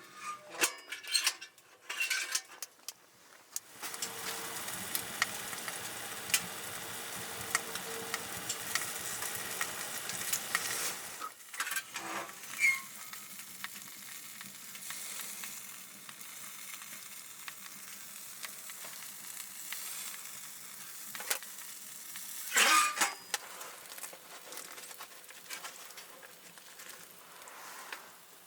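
Food sizzling and frying in a pan, loudest for several seconds from about four seconds in and then settling to a quieter sizzle, with a few knocks of utensils against the pan near the start and once more later.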